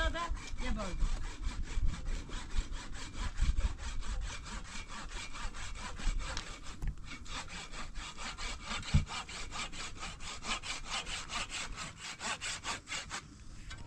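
Hand saw cutting through wood in quick, even back-and-forth strokes, with a brief pause about seven seconds in.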